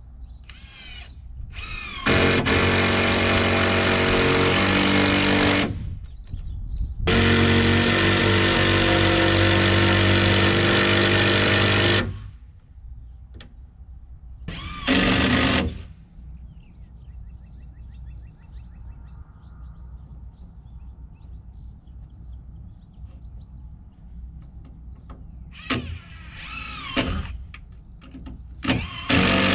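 Power drill driving screws: two long runs of several seconds each, then a brief run about fifteen seconds in, with shorter bursts near the end.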